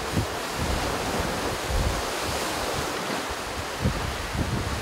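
Sea water rushing along a racing yacht's hull under way, with wind buffeting the microphone in irregular low thumps.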